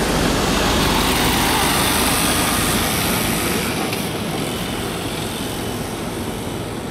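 Mercedes-Benz Actros tractor unit diesel engine and tyre noise as the truck drives past and pulls away, fading from about three seconds in.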